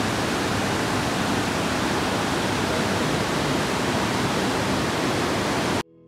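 A swollen mountain river rushing over rocks, a steady, even white-water noise that cuts off abruptly near the end.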